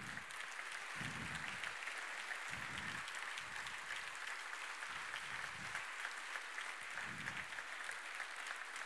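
Audience in a large hall applauding, dense steady clapping that neither swells nor dies away.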